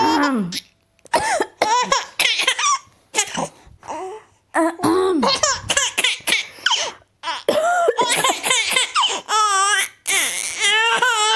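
A baby girl laughing in repeated high-pitched bursts and giggles, set off by an adult's coughs between them.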